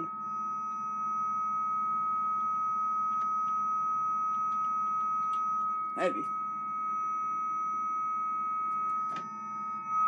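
300-baud dial-up modem carrier tones: a strong steady high whistle with fainter higher tones above it, holding unchanged with no warble of data being sent.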